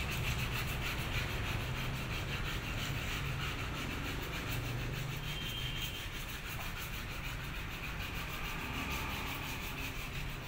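Hand wet-sanding of a bus's painted body panel with a sanding pad: a steady rasping rub of quick, repeated strokes, with a low hum underneath.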